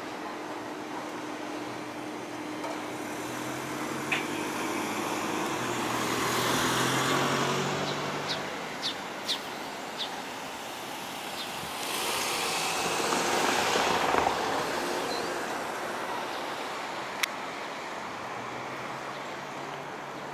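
Two road vehicles pass one after the other, each sound swelling and fading over a few seconds over steady traffic background. A few short, high clicks come between the passes and once more near the end.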